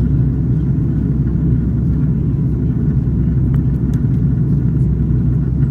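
Airliner cabin noise in flight: a steady, low rumble of jet engines and rushing air, heard from a window seat by the wing.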